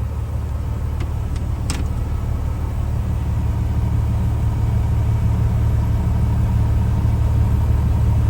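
Vehicle engine running steadily, a low rumble that slowly grows louder, with a couple of short clicks about a second and a half in.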